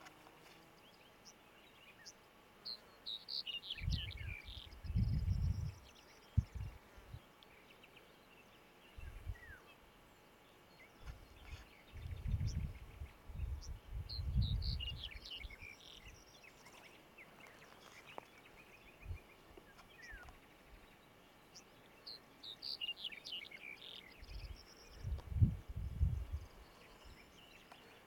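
Wind gusting on the microphone in low rumbles three times. A songbird sings a short phrase of high notes about every ten seconds, three phrases in all.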